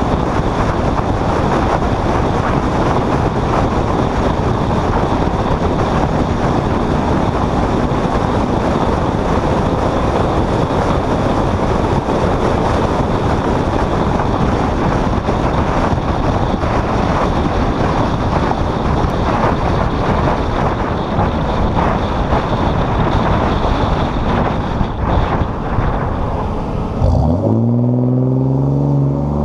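Steady rush of wind and road noise from a vehicle driving along a road at speed. Near the end, as it slows, the rush drops away sharply and the vehicle's engine comes through, its pitch rising.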